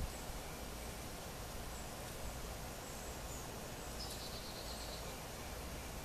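Outdoor ambience: a steady hiss with faint, high bird chirps here and there, including a quick run of chirps about four seconds in.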